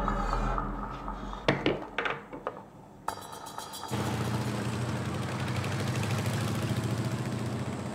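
A few sharp knocks in the first seconds. Then, from about four seconds in, a motorcycle engine runs steadily with a slight pulsing beat.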